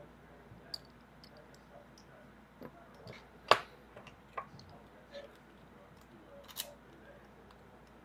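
Irregular sharp clicks and taps of a padlock being taken apart by hand with tools, one loud click about three and a half seconds in and another near the end.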